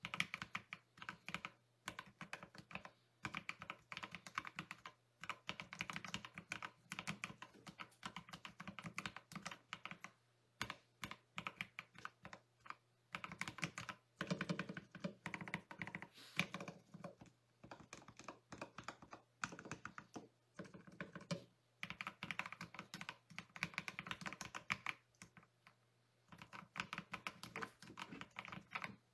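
Typing sound test on Akko CS Jelly Black linear switches in a foam- and tape-modded ID67 v2 keyboard with PBT keycaps: fast runs of keystrokes broken by short pauses.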